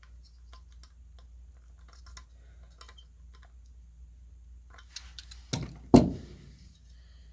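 Small metal clicks and taps of a screwdriver working on a furnace burner assembly's flame sensor mount. About five seconds in come a few sharper clicks, then a loud metallic knock with a short ring.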